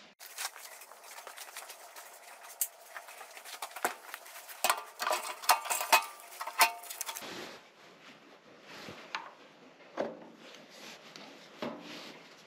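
Metal clinks, clicks and knocks of hand work with tools and parts. The loudest are a cluster of ringing clanks about five to seven seconds in, followed by quieter rustling and a few soft knocks.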